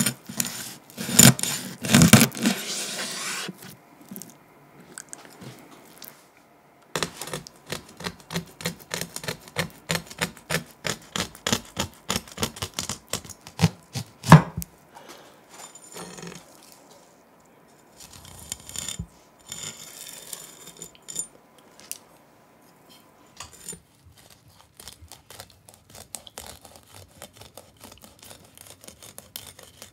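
Kitchen knife working a fish on a wooden cutting board: runs of quick scraping, cutting strokes, about four a second at their steadiest, with pauses between the runs.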